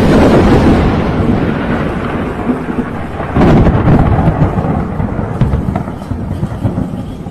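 Thunder: a loud crack of rolling rumble that slowly fades, then a second loud roll about three and a half seconds in.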